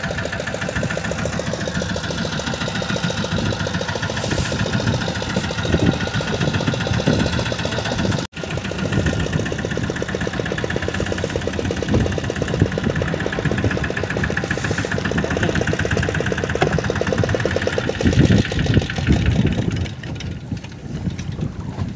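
Small fishing boat's engine running steadily with a fast, even beat, a few louder knocks about 18 seconds in, then quieter over the last two seconds.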